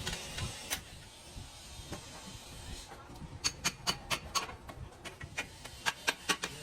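An irregular series of sharp clicks and clinks, thickening into a quick run of them about halfway through.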